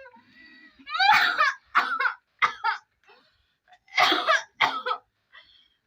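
A person coughing repeatedly, about five coughs in two clusters. The coughing is faked, put on to look like coughing up blood.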